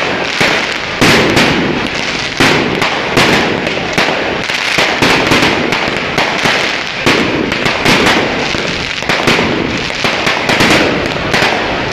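Aerial fireworks shells bursting in quick succession, about one sharp bang a second, over a continuous dense crackling from the glittering stars.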